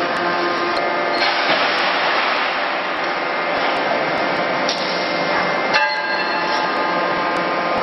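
Steady industrial machinery noise in a forging shop, a dense whirring with several steady tones, from the plant around a CNC hydraulic die forging hammer. A sharp metallic knock comes about six seconds in.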